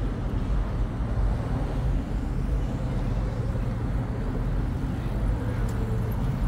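Steady low rumble of city road traffic, with no single sound standing out.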